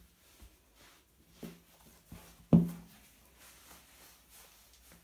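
A sheepskin boot being pulled onto a foot: faint rubbing and handling, a soft knock about one and a half seconds in, and one loud low thump about two and a half seconds in.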